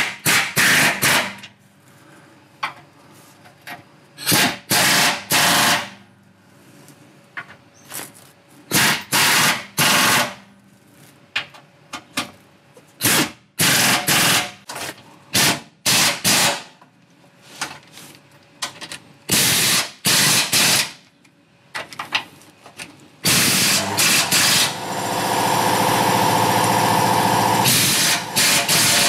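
Pneumatic impact wrench (rattle gun) hammering in many short bursts, each under a second, as it runs the crossmember bolts of a transmission mount up tight. Near the end it settles into a longer, steadier run.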